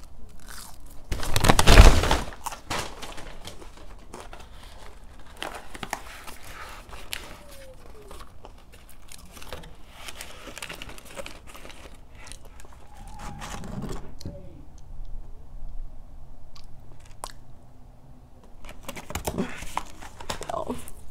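Close-miked eating and handling sounds: chewing McDonald's fries, with the crinkle and scrape of the cardboard nugget box, paper fry carton and sauce packets being handled, and scattered small clicks. A loud rustle lasting about a second comes about two seconds in.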